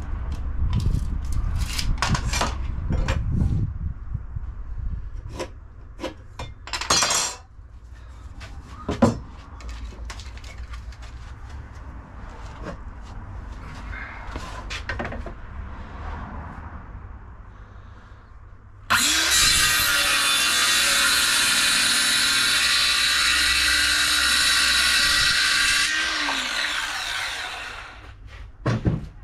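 Ryobi circular saw starting about two-thirds of the way in, running steadily through a softwood timber batten for about seven seconds, then winding down. Before it, scattered knocks and clicks of timber being handled on the bench.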